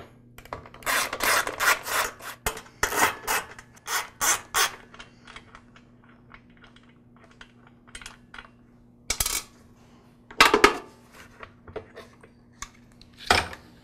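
Socket ratchet clicking in quick runs as the bolts holding a lawn mower engine's plastic recoil starter are loosened, followed by scattered metallic clinks and a few louder knocks as the tool and the starter cover are handled and lifted off.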